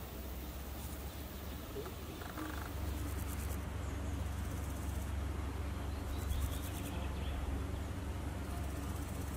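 Outdoor ambience: short bursts of high-pitched insect stridulation repeat every few seconds over a steady low rumble.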